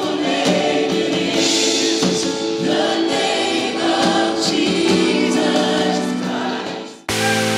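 Live worship music: a band with a lead singer and many voices singing together in sustained notes. It fades out about seven seconds in, and a different piece of music cuts in sharply just before the end.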